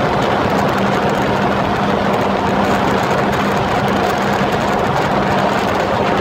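Jet ski engine running at a steady cruise, a constant droning hum, over a rushing haze of wind and water noise.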